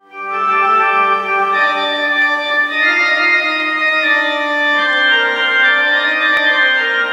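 Organ playing slow, sustained chords that change every second or two, fading in at the start.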